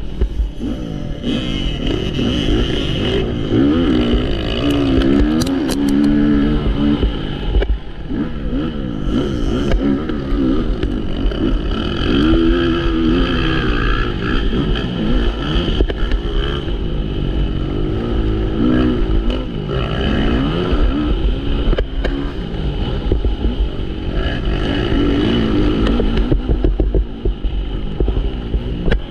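MX1 motocross bikes racing, their engines revving up and falling back again and again, with several overlapping engine notes.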